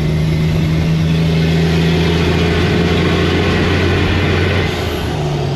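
Kenworth T800 dump truck's engine brake (Jake brake) running through its muffler, heard from the cab as a steady low drone that eases off near the end.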